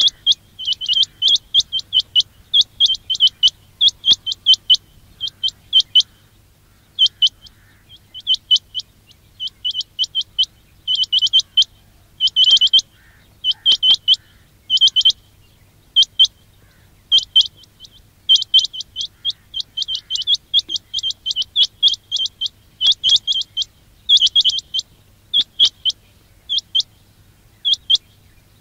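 Quail calling: short, sharp, high chirps in quick clusters of two to five notes, repeated again and again with short pauses between clusters.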